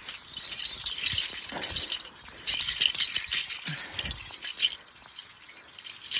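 Light metallic jingling of small metal pieces in two spells: one from about half a second to two seconds in, and a louder one from about two and a half to nearly five seconds in, with a few soft thumps.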